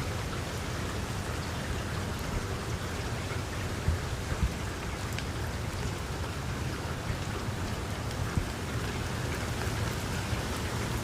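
Heavy rain falling steadily, a dense even hiss with a few faint pattering knocks.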